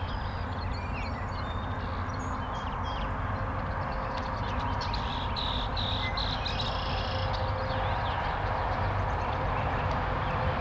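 Birds chirping and calling over a steady low background rumble.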